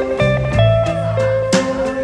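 Background music with guitar, a track of changing plucked notes over a steady beat.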